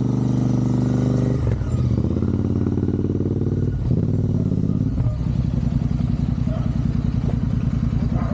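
Motorcycle engine running while being ridden. The engine note breaks and changes pitch about one and a half, four and five seconds in, then settles into a lower, pulsing run.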